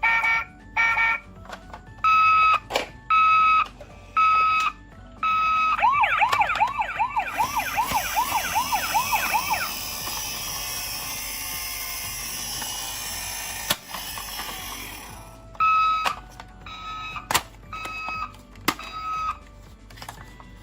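Toy ambulance's electronic siren sounds: a repeated steady beeping tone, then a few seconds of a fast up-and-down warbling siren. A hiss follows for several seconds, then the beeping returns, with sharp clicks scattered throughout.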